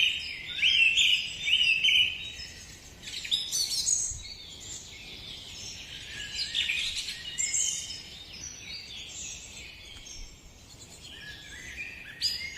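High-pitched bird calls and chirps, several birds calling over one another. There is a quick run of rising chirps in the first two seconds, then a looser mix of calls.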